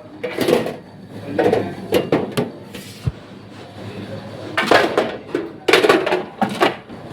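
Dishes, pots and utensils clattering as they are handled, in irregular bursts that are loudest about two-thirds of the way through.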